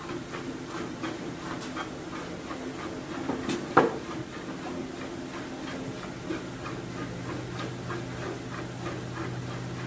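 Cow being milked by hand: rhythmic squirts of milk into a pail, about three a second, over a steady hum. One sharp, loud sound a little before four seconds in.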